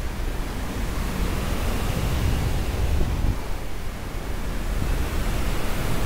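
Wind rushing and buffeting over the microphone in the fast airflow of a steep paramotor turn, a steady rush with an uneven low rumble.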